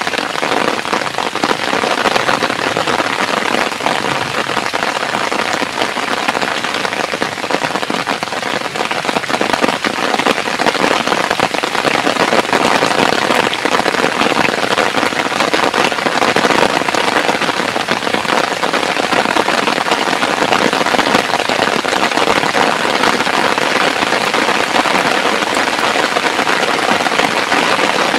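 Heavy rain falling steadily, a loud dense hiss of drops.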